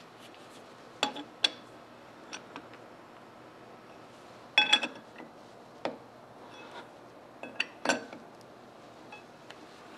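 Metal clinks and knocks of a chuck key being fitted into and turned in a four-jaw lathe chuck as the jaws are adjusted to center the workpiece: a handful of sharp clinks, loudest a pair in the middle and another near the end.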